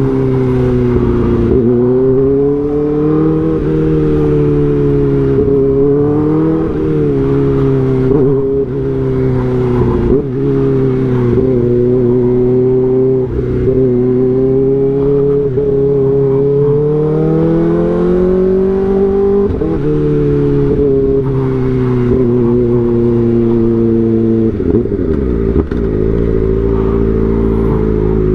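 Kawasaki ZX-4RR's high-revving inline-four engine running under way, its note rising and falling with the throttle. It winds down in a few falling sweeps near the end.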